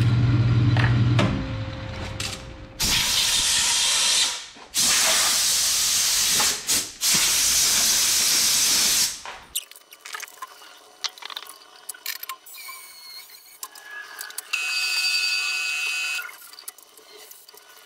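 A metal lathe's motor hum cuts off about a second in. Three long bursts of loud hissing follow, then quieter clicks and a short whirring tone near the end.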